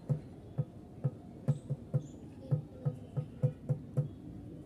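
Squirrel nibbling wheat grains: a quick, slightly irregular series of small crunching clicks, about three to four a second.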